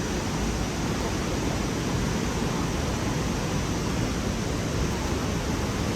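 Steady rushing roar of falling water from the waterfall and its stream, an even noise with a low, fluttering rumble underneath and no distinct events.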